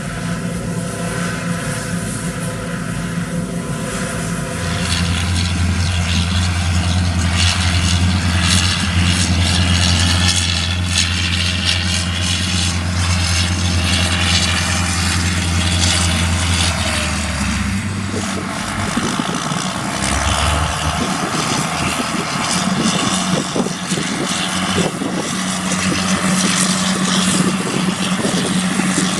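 Heavy harvest machinery running steadily in the field, a loud diesel engine drone with a constant hiss over it. A deeper drone joins about five seconds in and drops away about thirteen seconds later.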